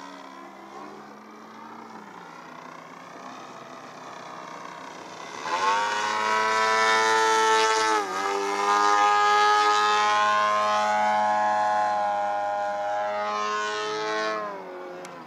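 Engine and propeller of an aerobatic radio-controlled model plane in flight, a buzzing pitched note. About five seconds in it grows much louder and the pitch sweeps up and down through the manoeuvres, then it falls away near the end.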